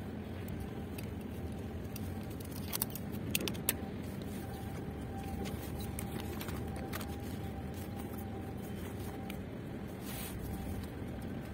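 Steady low outdoor rumble with a faint steady hum, and a few light clicks about three seconds in and again near the end.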